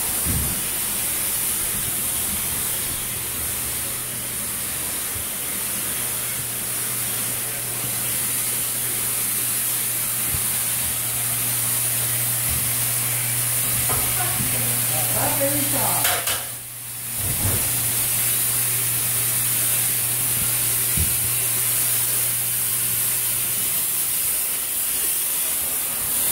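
Paint sprayer running: a steady spraying hiss over a low motor hum, both dropping out briefly about sixteen seconds in.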